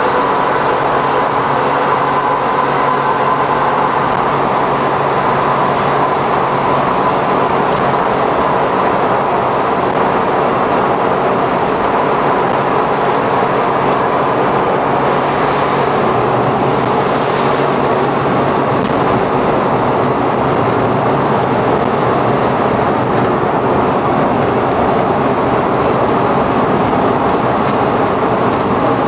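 Suzuki Every kei van fitted with Auto Gear Shift, heard from inside the cargo area: its small three-cylinder engine and tyre and road noise at a steady cruise through a tunnel.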